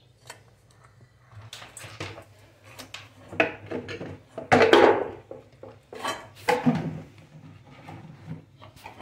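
Kitchen utensils and containers being handled on a countertop: an irregular run of clinks, knocks and scrapes, the loudest about four and a half seconds in.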